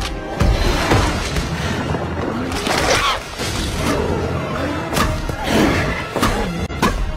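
Movie fight soundtrack: orchestral score under a run of heavy thuds and crashes as a giant ape and a dinosaur grapple.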